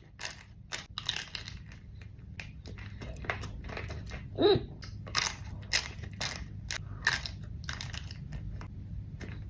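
Someone biting into and chewing crunchy food, with sharp crunches at irregular intervals over a low steady hum.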